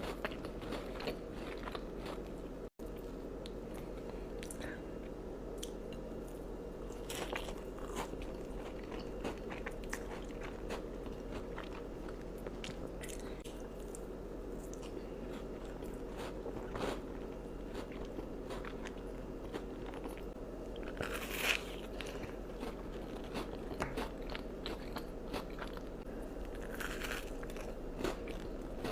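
Close-miked eating of crunchy dessert: repeated bites and crunches with chewing, over a steady low hum, with a few sharper crunches in the second half.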